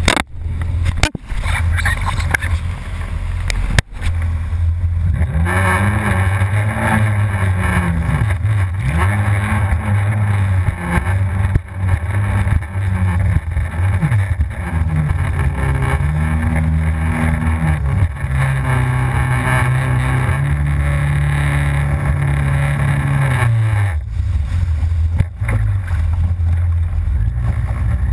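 Yamaha FZS WaveRunner's supercharged four-stroke engine revving up and down repeatedly as the jet ski runs through the waves, over a loud rush of wind and water spray. The engine runs low and steady for about the first five seconds and again for the last four.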